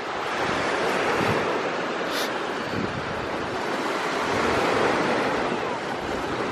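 Waves washing in: a steady rush of water that swells and eases, with a brief hiss about two seconds in.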